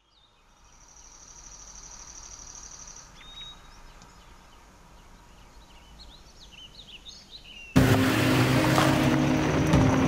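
Quiet woodland ambience fading in, with birds chirping and a steady high-pitched tone. About three-quarters of the way through, loud background music cuts in abruptly.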